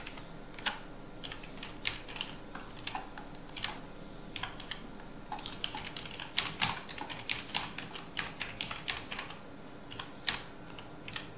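Typing on a computer keyboard: irregular keystroke clicks, sparse at first, then a quicker run of keys through the middle, and a few spaced taps near the end.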